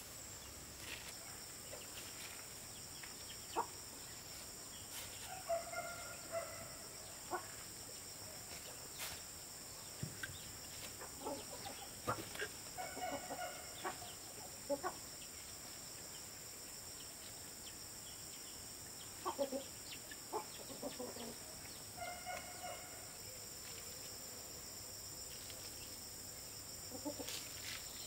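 Chickens clucking in a few short bursts of calls, with soft scrapes and taps of soil being scooped by gloved hands into cement flower pots.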